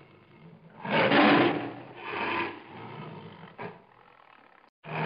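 Male lion roaring in a series of calls: a loud call about a second in, a weaker one after it, and fainter ones trailing off, with a new loud call starting at the very end.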